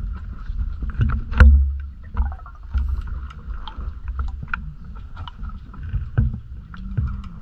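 Underwater sound of divers' gear, recorded inside a camera housing: a steady low rumble with a faint steady hum, many scattered sharp clicks and knocks, and a louder low thump about a second and a half in.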